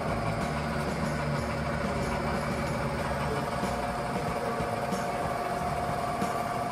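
Steady mechanical hum with a constant mid-pitched whine over a low rumble.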